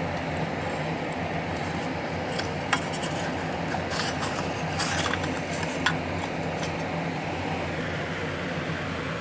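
Tin toy motorcycle being handled and turned over: a few light metallic clicks and clinks from its tin body and seized wind-up mechanism, over a steady low hum.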